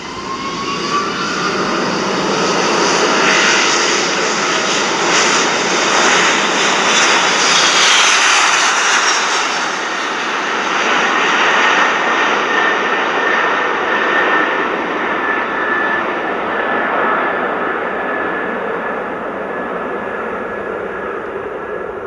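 Jeep engine running, heard up close under the hood: a loud, steady rush with a thin, steady whine across it, swelling over the first second or two.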